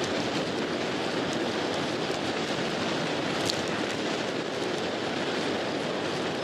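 Steady rush of wind and tyre noise from a road bike rolling on pavement, heard through a handlebar-mounted action camera's microphone, with a few faint ticks and one sharper click about three and a half seconds in.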